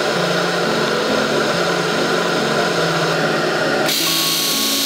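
Drill press spinning a sanding drum, steady throughout, turning into a louder rasping of wood being sanded from about four seconds in as a plywood panel is pressed against the drum. Background music with a stepping bass melody plays under it.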